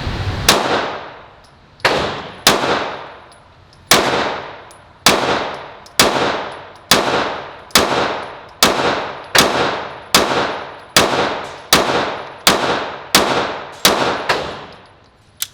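Pistol firing a string of about eighteen single shots at a steady pace, a little under a second apart, with a couple of longer pauses near the start. Each report echoes in an indoor shooting range.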